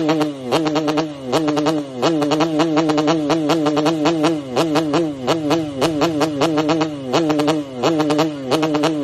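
Yamaha RX King 135 cc two-stroke single-cylinder engine blipped hard again and again against its rev limiter. The pitch snaps up and falls back about once or twice a second, with a fast stuttering buzz while it sits at the limiter.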